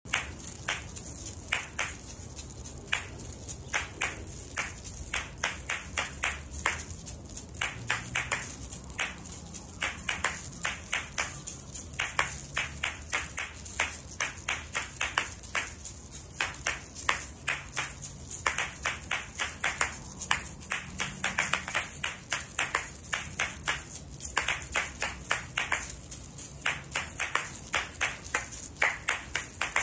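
Asalato (kashaka) shaker balls swung on their cords and clacking together in a freestyle rhythm: fast runs of sharp clacks broken by short pauses.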